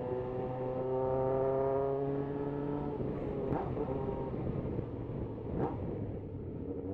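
Yamaha XJ6 motorcycle's inline-four engine pulling with its pitch slowly rising. About three seconds in the steady note breaks up into a rougher, uneven sound, with two sharp pops about two seconds apart.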